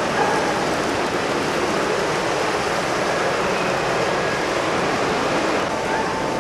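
Steady, even rushing background din of a busy exhibition hall, with a faint thin hum through the middle.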